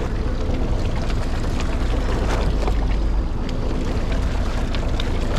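Fishing boat at sea: a steady low rumble from the boat's engine and wind on the microphone, with a few faint clicks.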